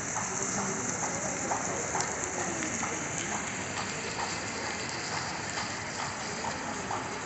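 Ground-level plaza fountain jets splashing onto wet paving: a steady hiss of falling water, with faint ticks.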